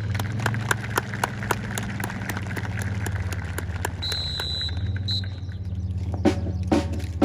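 Fast, evenly spaced light clicks over a steady low hum, with a brief high beep about four seconds in. Louder drum hits come in near the end.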